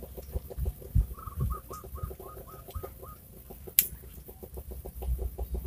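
A bird calling a quick run of about eight short repeated notes, over a fast, steady pulsing chorus, with one sharp click near the end.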